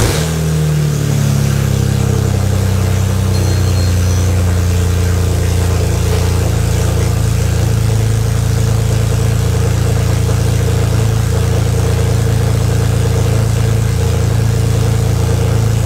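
BMW E46 M3's S54 straight-six just after its first start, settling within the first second into a steady, very loud idle. It is running on the new Megan Racing headers alone, with the following exhaust section (section one) not yet fitted, so the exhaust is open behind the headers.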